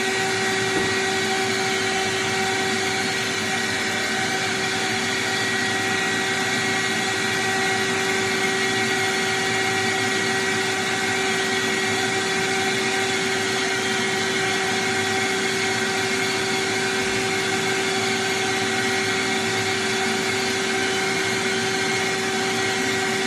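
Electric motor of drywall-sanding and dust-extraction equipment running steadily: a constant whine over rushing air.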